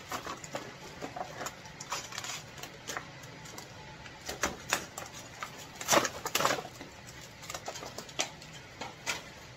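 Plastic wrapping crinkling and tearing as it is peeled and pulled off a block of battery cells: irregular crackles and clicks, loudest about six seconds in.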